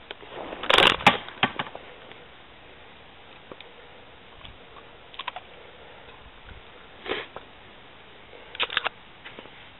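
A few short, scattered clicks and rustles over a quiet background, the loudest about a second in; no engine is running.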